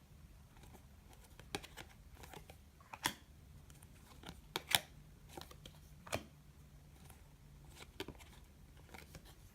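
Glossy chromium trading cards being handled and flipped one at a time, each card sliding off the stack with a short, sharp click, at irregular intervals of about a second; the loudest snap comes a little under halfway through.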